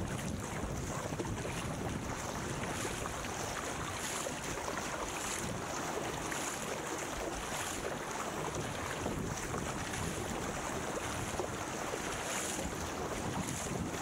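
Wind buffeting the microphone and water rushing past a surfski hull at speed, with the splash of the paddle blades coming about once a second.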